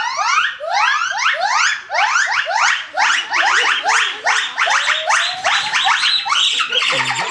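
Gibbons giving a great call: a long series of loud rising whoops that come quicker and shorter toward the end as the call builds to its climax.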